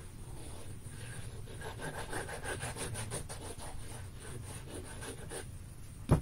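Sheets of cardstock rubbing and sliding against each other and the work surface as they are handled, a rapid run of short scrapes. A single sharp knock near the end.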